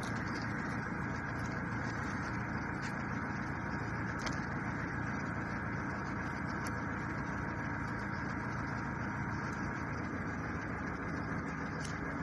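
A steady mechanical hum, like an engine running, with a few faint light clicks spread through it.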